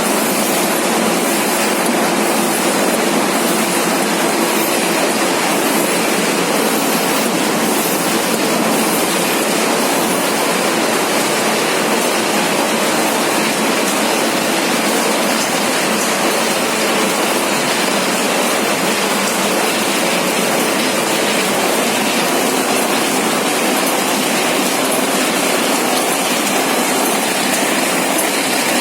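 Two-colour carton die-cutting machine running at speed, a loud, steady and unchanging mechanical noise.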